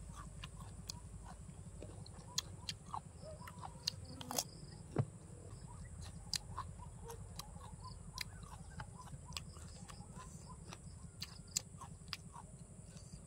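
Close eating sounds: chewing and crunching crispy pork belly and raw vegetables, heard as a run of sharp, irregular clicks and crackles over a steady low rumble.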